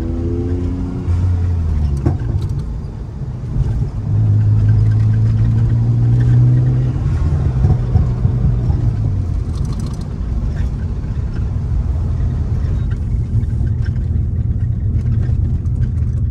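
Mitsubishi 3000GT VR4's twin-turbo V6 accelerating in low gears. Its pitch climbs, drops about two seconds in, climbs again from about four seconds, then eases into a steady low rumble.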